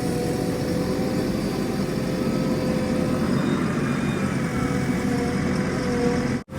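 A heavy diesel engine running steadily. The sound cuts out for a moment near the end.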